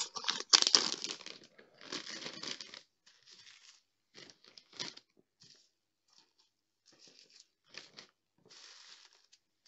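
Plastic bags crinkling and rustling as small bags of diamond-painting drills are dropped into a large Ziploc bag. The rustling is densest in the first three seconds, then comes in short scattered bursts.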